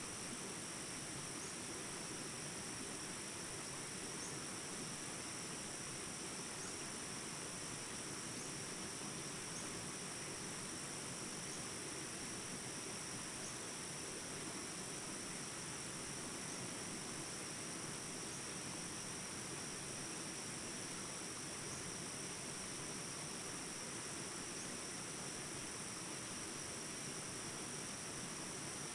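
Jungle ambience recording: a steady, high insect chirring over the even rush of small water rapids, with faint brief chirps now and then.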